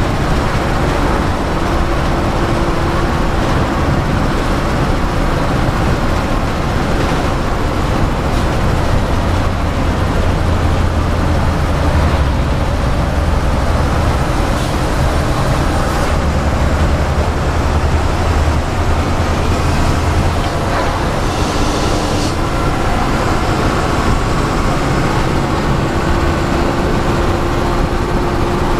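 Bus engine and tyre noise heard from the driver's cab while cruising on a highway: a steady drone whose low engine hum grows stronger for several seconds in the middle. A few light knocks come through, and there is a short hiss a little past the middle.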